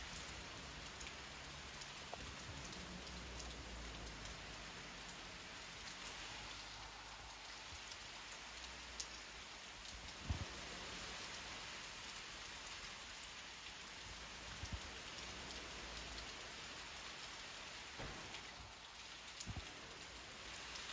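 Steady rain falling in Hurricane Helene's storm, with a few sharp ticks here and there.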